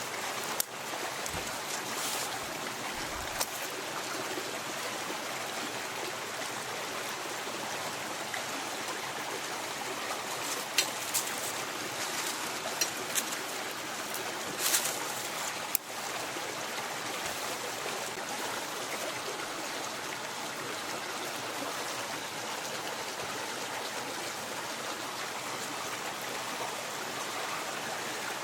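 Mountain stream running steadily, with a scattering of short sharp clicks and knocks, most of them around the middle.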